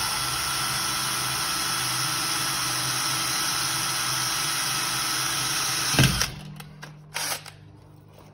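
Cordless drill driving a short screw into a wind-chain bracket on a steel storm door, running steadily with a high whine for about six seconds and then stopping with a sharp knock. A short clatter follows about a second later.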